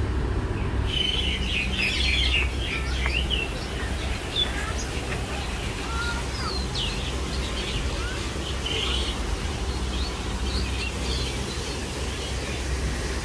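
Many small birds chirping and twittering in short, scattered calls, starting about a second in, over a low steady rumble.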